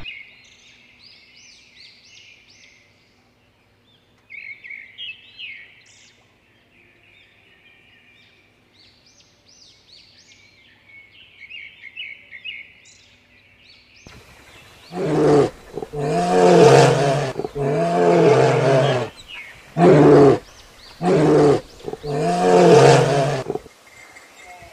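Faint bird chirps, then a large wild animal roaring in a series of about six loud, deep calls, starting about fifteen seconds in, some long and some short.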